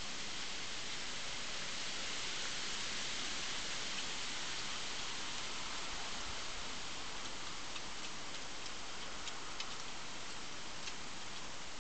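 Steady hiss with faint, scattered ticks and clicks in the second half, as a badger noses and chews at food scraps among torn paper.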